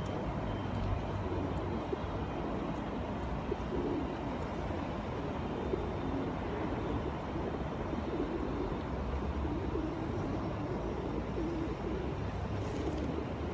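A feeding flock of pigeons cooing continuously, many calls overlapping, over a steady rushing background.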